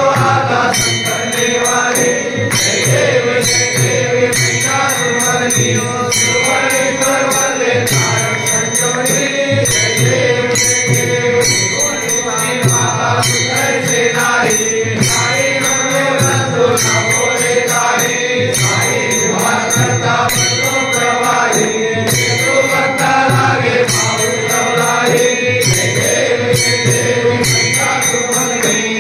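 Hindu devotional aarti, sung by voices to a steady percussion beat.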